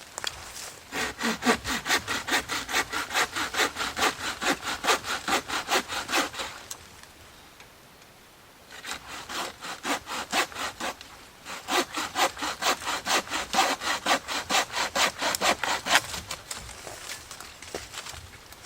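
Hand saw cutting wood in quick back-and-forth strokes, about four a second. It comes in two long bouts with a pause of about two seconds between them.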